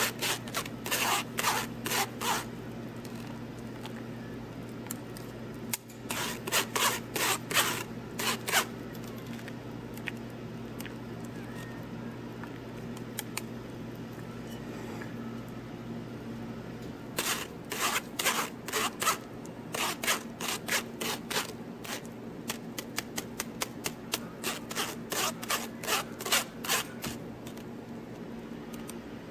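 Wire whisk scraping against a fine-mesh metal strainer, pressing beaten egg through it, in several bouts of quick strokes with pauses between. A steady low hum runs underneath.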